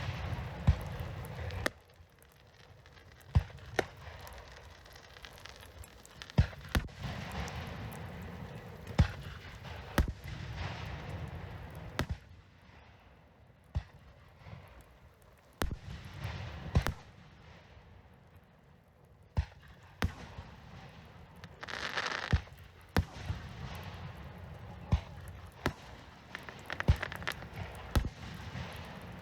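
Fireworks display: aerial shells bursting with sharp bangs every second or so, with crackling and hissing between the bangs.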